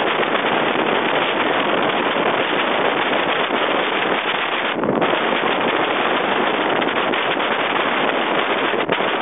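Steady, loud wind noise on the microphone from riding at descending speed on a recumbent tandem bicycle.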